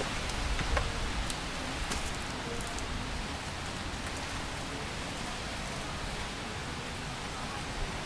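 Steady, even rushing of outdoor ambience, with a few faint ticks in the first two seconds.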